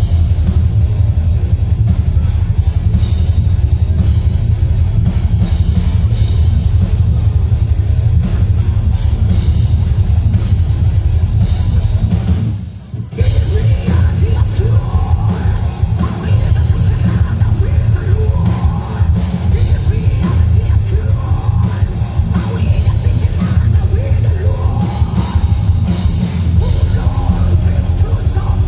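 Live heavy metal band playing loud through a festival PA: pounding bass drum, cymbals and heavy guitars. Near the middle the band cuts out for about half a second, then crashes back in, with sung vocals over it in the second half.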